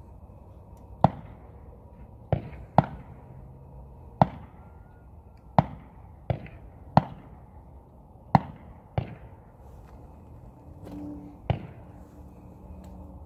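A rapid, irregular string of about ten sharp bangs, each with a short ringing tail, coming between half a second and a second and a half apart.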